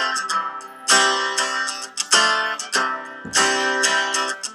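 Background music of strummed guitar chords, a new chord struck about every second and ringing out.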